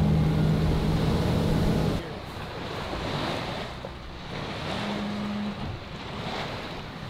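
Boat engine running under way, with wind and rushing water, for about two seconds. It then cuts abruptly to a quieter wash of water and wind, with a brief low hum about five seconds in.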